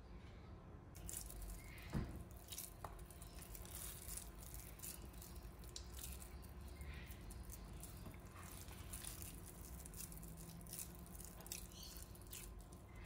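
Faint wet clicking and squishing of hands working a ground-pork mixture into balls in a stainless steel bowl, with one louder knock about two seconds in.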